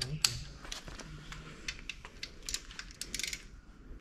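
Light metallic clinks of hand tools and sockets being handled, with a short quick rattle of metal near the end.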